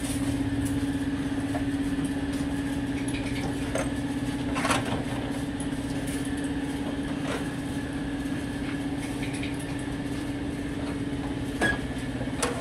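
Steady machine hum with a fine rapid flutter, with a few sharp metal knocks and clicks over it, the loudest about five seconds in.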